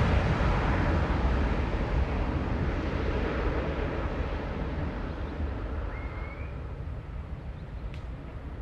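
Boeing 737-800 jet engines after take-off, a broad rumbling roar fading steadily as the airliner climbs away. A faint short chirp about six seconds in.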